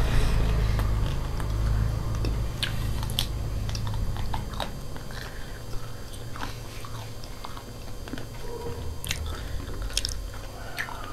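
People chewing and biting food close to the microphone, with many scattered wet mouth clicks and smacks.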